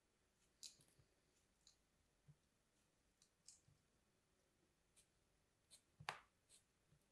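Knife blade scraping and cutting through a molded block of kinetic sand: faint, scattered crisp crunches and crackles as the sand breaks away, with one fuller crunch about six seconds in.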